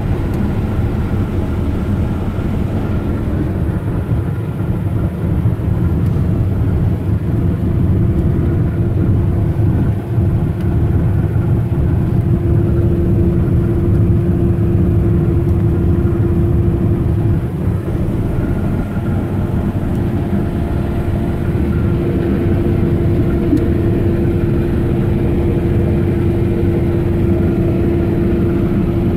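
Heavy farm harvest machinery running steadily, a continuous low engine drone. A steady mid-pitched hum joins in about twelve seconds in and holds.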